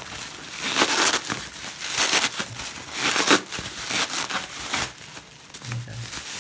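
Plastic bubble wrap crinkling and rustling as hands turn over and pull at a thickly wrapped parcel, in several separate bursts.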